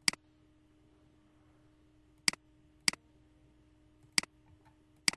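Computer mouse button clicked five times at irregular intervals, each a sharp click, some followed by a softer release tick.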